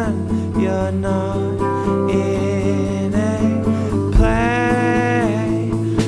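Band playing a song with acoustic guitar and a singing voice; a long held note comes in about four seconds in and bends down at its end.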